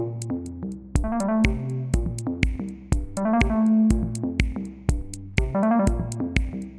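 Background electronic music: synthesizer notes over a steady drum-machine beat.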